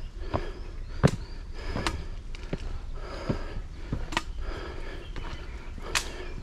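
Footsteps on a concrete path at an easy walking pace, one sharp step a little under every second, over a steady low rumble.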